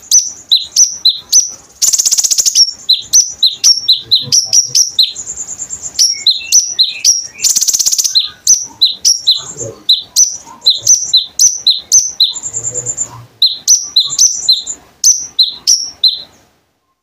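Konin songbird singing: a fast, loud series of high, sharp chirps, several a second, broken three times by a short, high buzzy trill. The song stops abruptly near the end.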